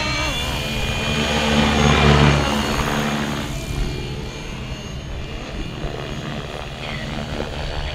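FLY WING FW450 V2 electric RC helicopter, running on a 3S LiPo, flying past with a steady whine from its rotor and motor. It is loudest about two seconds in, then fades as it flies away.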